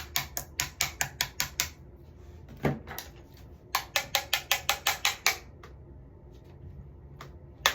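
Rapid runs of sharp taps, about six a second: a run of about ten, a single tap, then a run of about a dozen, with a few isolated taps near the end.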